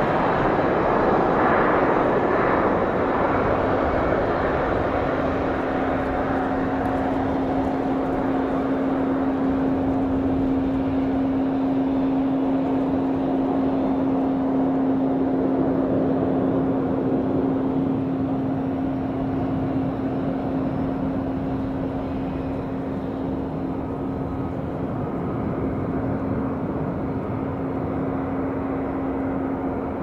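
Boeing 777 airliner's twin jet engines at takeoff power as it lifts off and climbs away: a steady roar with a strong humming tone that comes in a few seconds in, loudest near the start and slowly fading.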